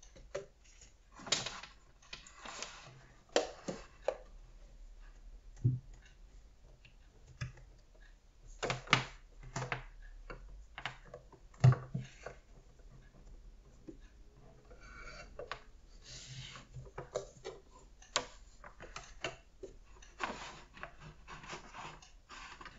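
Handling noise from computer cables being plugged in and a Mac mini being placed on a wooden desk: scattered rubbing, light clicks and knocks, with the loudest knock about halfway through.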